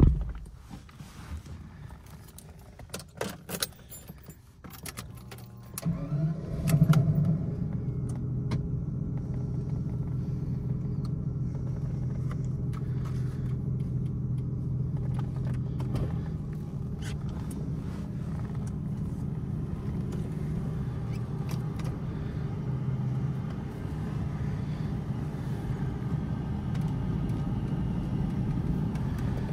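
A car door thuds shut, then keys jangle and click in the ignition; about six seconds in the 1992 Jaguar XJS's engine cranks, catches and settles into a steady idle, heard from inside the cabin.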